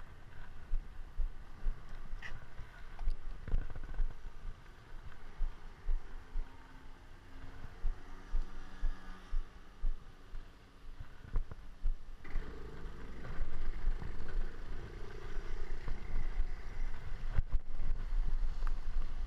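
Wind buffeting a bicycle-mounted action camera's microphone, with a steady, gusty rumble and the hiss of tyres on a wet road as a road bike rides through rain, and occasional clicks. The noise gets fuller and louder a little past the middle.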